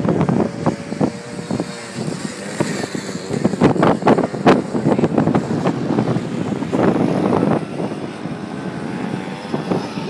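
Suzuki LT50 youth quad bike's small two-stroke engine running as it rides along a dirt track, with irregular buffeting on the microphone.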